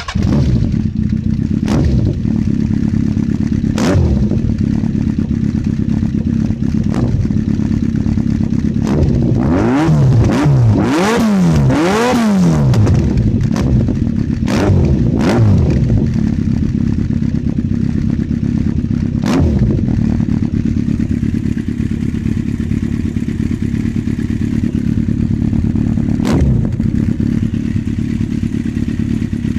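Motorcycle engine breathing through an aftermarket GP-style silencer: it comes in suddenly, settles into a steady idle, and is blipped with the throttle every few seconds, with a run of quick repeated revs about ten to thirteen seconds in.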